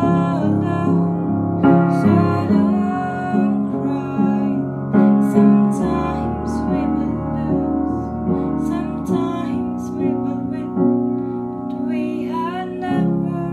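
A woman singing over her own accompaniment on a Boston upright piano, with slow, sustained chords restruck about once a second.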